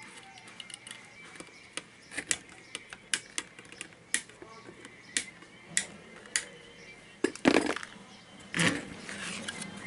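Side cutters snipping off the protruding leads of newly soldered rectifier diodes on a power-supply circuit board: a string of a dozen or so sharp clicks. Two louder, longer handling noises follow near the end.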